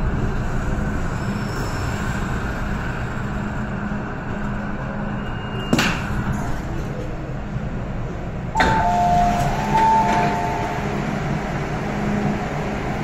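MTR M-train running with a steady rumble and motor hum as it slows to a stop at a platform, with a sharp click about halfway through. About two-thirds through, the doors open with a sudden rush and a two-tone door chime sounds twice.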